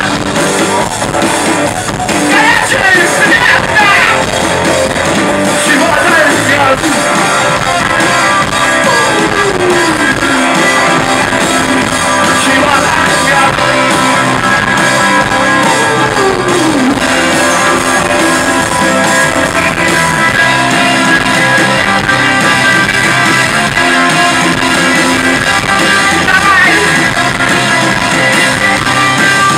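Live rock band playing loud: electric guitar, bass guitar and drums, with a singer's voice over them.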